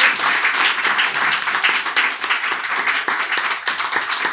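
Audience applauding, many hands clapping, the claps growing sparser near the end.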